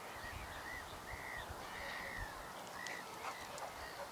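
Birds calling repeatedly by the river: a run of short arched calls, several a second, over a faint steady outdoor background.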